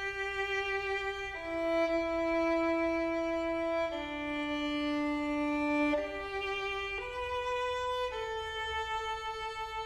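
Background music: a violin playing a slow melody of long held notes. A new note comes every one to two seconds, and the last note wavers with vibrato.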